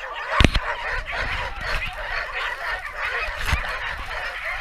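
A chorus of many Alaskan huskies yelping and barking at once, calls overlapping without a break, as a hitched sled team waits to run. Two sharp knocks cut through it, the louder one about half a second in.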